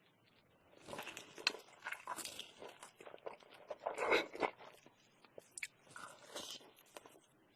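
Close-up eating sounds: crunchy KFC food being bitten and chewed, in irregular crackly crunches, the loudest about four seconds in.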